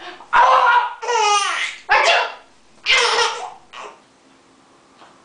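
A woman laughing hard in loud bursts, one of them a high squeal that slides down in pitch, fading out about four seconds in.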